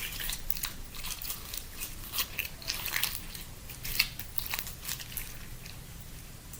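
Slime being kneaded and squeezed by hand, giving irregular small wet clicks and crackles.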